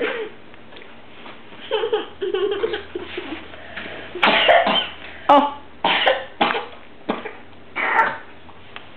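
A young child coughing several times in short, separate bursts, after a few brief vocal sounds.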